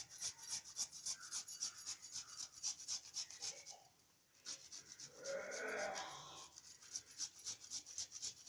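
Fresh ginger being crushed by hand with rapid, even scraping strokes, about five a second. There is a short pause and a denser scrape near the middle before the strokes start again.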